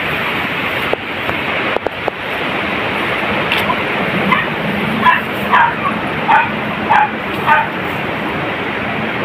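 Beagle hunting dog barking repeatedly, about seven barks in quick succession starting a few seconds in, over steady wind noise on the microphone.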